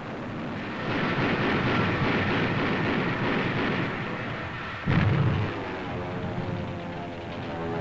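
Anti-aircraft gunfire rattling on an old wartime film soundtrack, with one heavy boom about five seconds in, the loudest sound. After the boom a steadier droning sound follows.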